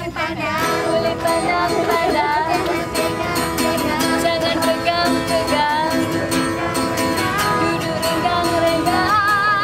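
Music: voices singing a song over instrumental accompaniment with a steady strummed beat.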